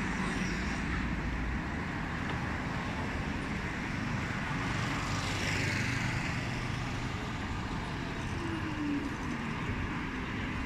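Steady city street traffic: cars and other vehicles running along the road, with a swell of passing-vehicle hiss about halfway through.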